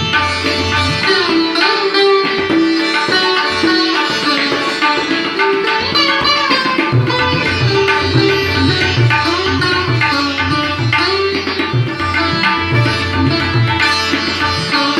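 Sitar playing a Hindustani classical melody in quick plucked phrases over its ringing drone strings, with tabla accompaniment whose low drum strokes drop out for a few seconds near the start and return.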